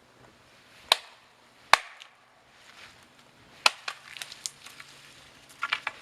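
An axe chopping wood: two sharp blows close together, a third about two seconds later, then lighter clicks and knocks of wood.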